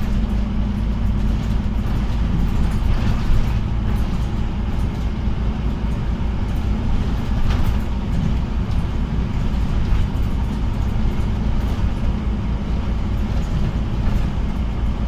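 Scania OmniCity bus heard from inside the passenger cabin while driving: a steady low engine and road rumble, with a few light rattles and knocks from the body.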